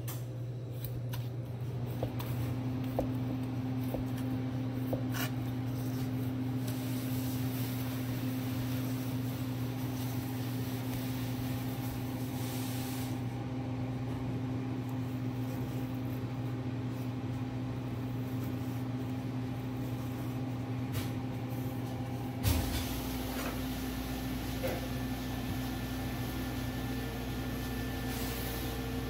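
Steady low hum of kitchen machinery, with a few light taps in the first several seconds. About three-quarters of the way through there is a sharp knock, and a deeper hum joins in after it.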